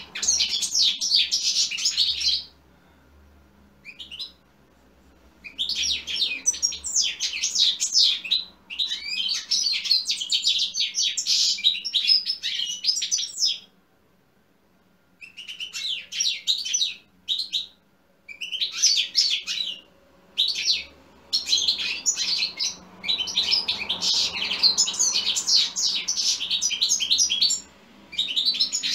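European goldfinch singing: a fast, twittering song in phrases of a few seconds, broken by short pauses.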